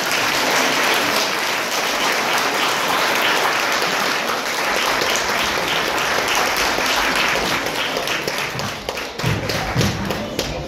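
Audience applauding: dense, steady clapping that thins out into scattered separate claps near the end.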